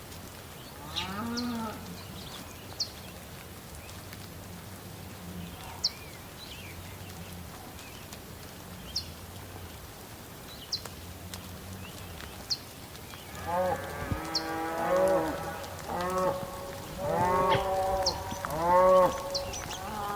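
Cattle mooing: one call about a second in, then a run of several calls in the second half, over a steady background hiss with faint short high chirps.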